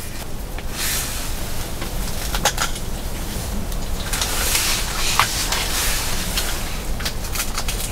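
Food frying in an oiled pan: a steady sizzling hiss with a few light clicks, as from a utensil against the pan.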